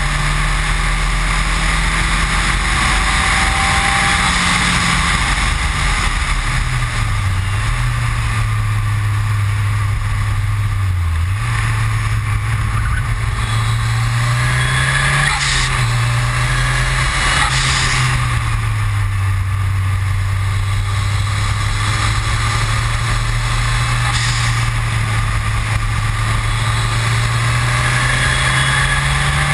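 Ford Escort RS Cosworth's turbocharged four-cylinder engine running hard at speed on track, over wind and tyre noise. Its note dips and climbs again several times, with a few short sharp sounds in the middle.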